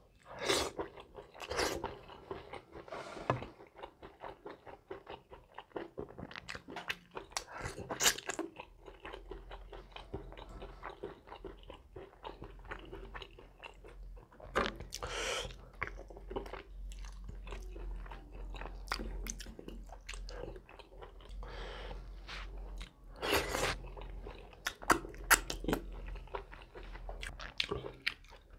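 A person chewing and smacking food in irregular wet mouthfuls while eating by hand, with louder bursts about half a second in, around eight and fifteen seconds, and a cluster near the end.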